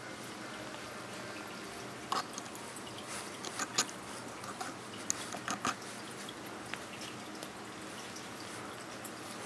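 Steady water trickle and drip from an aquarium's filter, with a few sharp close clicks and taps in the middle.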